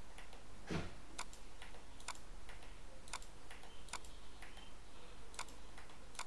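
Computer mouse buttons clicking: sharp single and double clicks about once a second as edges are picked with left and middle clicks. A soft, dull bump comes under a second in.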